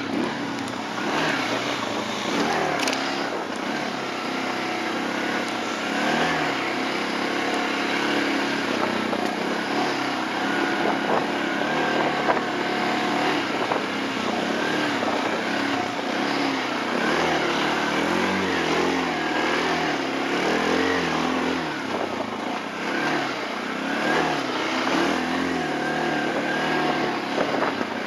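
ATV (quad bike) engines running and revving, the pitch rising and falling without a break.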